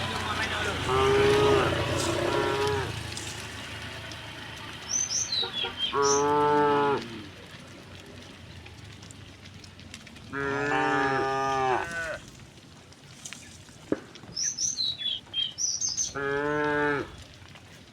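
Cows mooing four times, several seconds apart, each call a second or two long.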